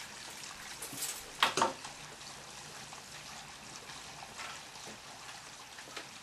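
Rustling and clatter of test equipment and leads being handled and set down, with two sharp clacks about a second and a half in, over a steady hiss.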